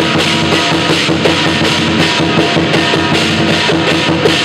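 Drum and cymbal accompaniment for a Chinese dragon dance: a fast, steady drumbeat under constant clashing cymbals.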